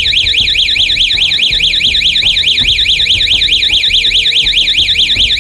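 12-volt electronic alarm siren with a red LED light, set off by a motion sensor, wailing in a fast warble: a high tone sweeping rapidly up and down, several times a second. It is pretty loud.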